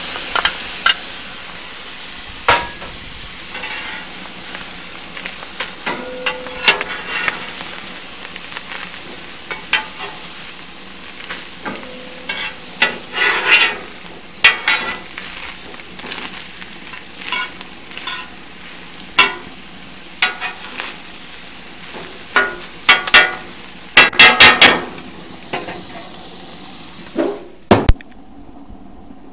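Ground beef, onions and sweetcorn sizzling on a steel griddle plate on a gas grill, with a metal scraper scraping and clacking against the plate as the food is mixed and pushed into a pile. The scraping comes in quick runs of strokes, and the sizzle drops away suddenly near the end.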